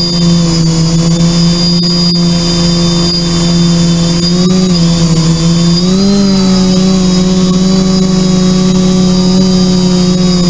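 Dead-cat-frame quadcopter's electric motors and propellers buzzing steadily in flight, heard close from the camera on the frame, with the pitch rising briefly twice around the middle as the throttle changes.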